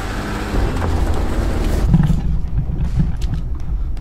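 Jeep Gladiator Rubicon running at a slow crawl under its crawl control system as it strains to climb a rocky ledge, a steady engine hum. About two seconds in, the sound turns to a deeper, muffled rumble with scattered knocks.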